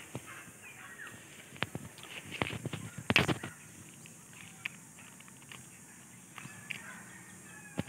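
Light knocks of a chicken egg being tapped against a concrete hollow block to crack its shell. Birds call in the background, loudest about three seconds in.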